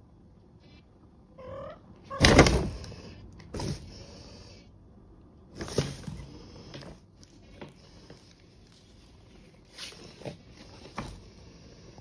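A cat's short rising chirp, then the crinkle and crackle of a stiff plastic bag as a Maine Coon pounces on it and paws it, in several bursts, the loudest just after the chirp.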